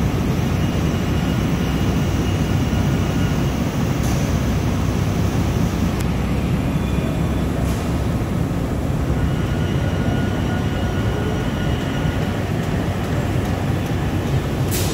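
Several high-speed roll die-cutting machines for paper cup fans running at once: steady, dense machine noise weighted to the low end, with a few sharp clicks.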